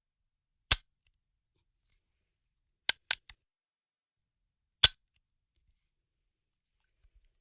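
Weapon sound effects: a single sharp, dry crack, a quick group of three about two seconds later, then another single crack. Each one is short, with silence between them.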